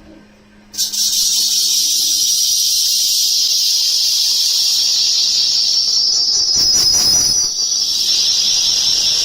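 CNC wheel lathe running: a loud, high-pitched hiss starts suddenly just under a second in and holds steady, with a brief rougher surge about two-thirds of the way through.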